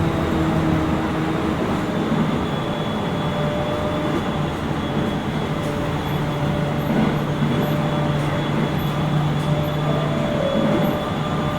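JR East 701 series 5500-subseries electric train running between stations, heard from inside the car: a steady rumble of wheels on track, with several faint steady tones from the running gear.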